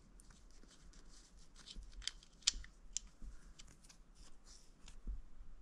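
Faint, scattered small ticks and light scraping as a steel drain bolt is turned by hand and backed out of a new threaded insert in the aluminium crankcase, a few sharper clicks about two to three seconds in.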